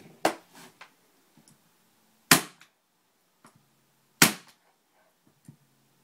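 Arrow ET501 electric staple/brad gun firing into the wooden frame of a canvas picture: three sharp cracks about two seconds apart, with faint handling clicks between.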